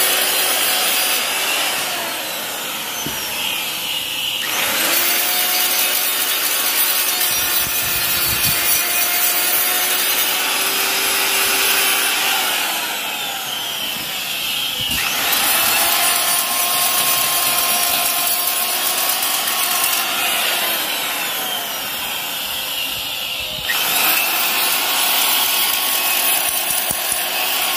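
Pencil grinder (die grinder) working a metal pipe, a steady high motor whine under a harsh grinding rasp. It goes in several long passes, and the whine sinks and climbs back up near 5 and 15 seconds in as the bit is leaned on and eased off.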